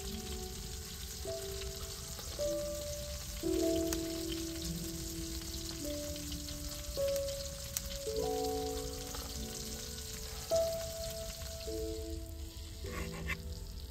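Food sizzling steadily in a frying pan, under slow background music of held notes that change about once a second. A short soft knock comes near the end.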